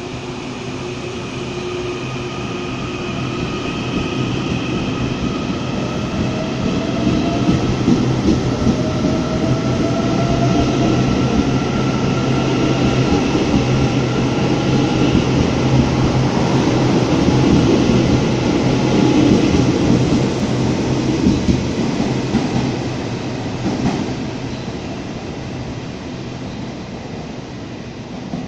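Taiwan Railways EMU800-series electric multiple unit accelerating away from the platform. The traction motors' whine rises slowly in pitch over the rumble of the wheels and cars. The sound builds to its loudest in the middle, then fades as the last cars pass and the train draws away.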